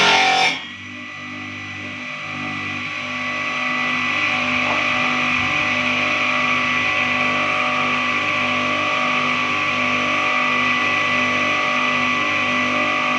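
Homemade table saw driven by an angle-grinder motor, running with a steady high whine that builds over the first few seconds and then holds. A few seconds of music cut off about half a second in.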